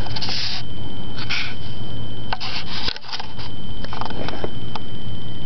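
A cat's fur brushing and rubbing against the camera microphone, making loud rustling bursts with a few sharp clicks, over a steady low hum.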